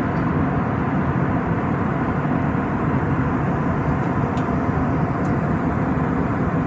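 Aircraft cabin noise in flight: a steady, even roar of engines and rushing air heard from inside the cabin.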